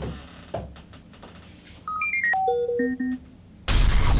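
A few clicks of laptop keys, then a short melody of electronic beeps stepping down in pitch, like a computer's failure jingle. Near the end a sudden loud explosion goes off as the laptop blows up, and keeps going.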